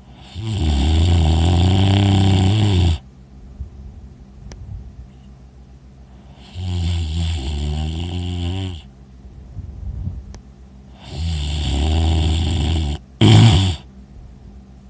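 A person snoring loudly in sleep: three long, deep snores a few seconds apart, each lasting two to three seconds. Right after the third comes a brief, louder burst, the loudest moment.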